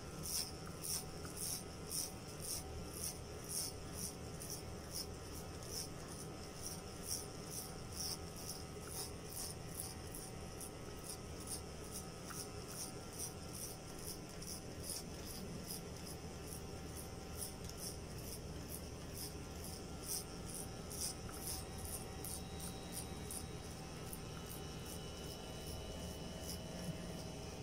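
Electric hair clipper cutting hair: a quick regular rasping, a little over two strokes a second, as the blades are drawn through the hair, over the clipper's faint steady hum.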